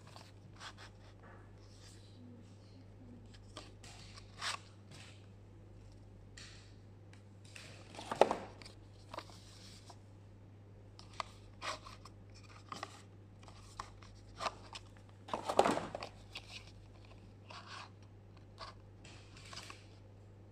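Paperboard sliding-drawer eyelash box being handled: scattered light clicks and scrapes of card against card and fingers, with two louder brief rubbing sounds, about eight and fifteen seconds in.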